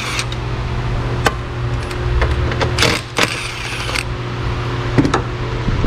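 Red cordless power tool running in two short bursts near the middle, spinning out the bolts that hold down the engine cover, with sharp metal clicks between, over a steady low hum.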